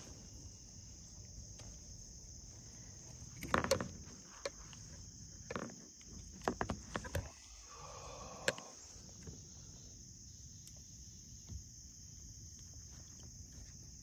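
Insects calling in a steady, high-pitched chorus over still water. A few scattered knocks and clicks come through, the loudest cluster about four seconds in and another round the middle.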